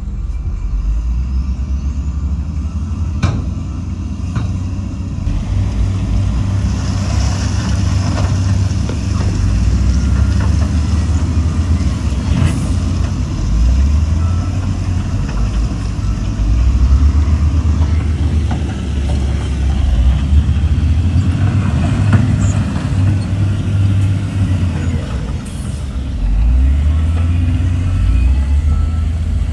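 Heavy diesel engines of a Shacman dump truck and a wheel loader running and revving unevenly as they work, with a few sharp clanks.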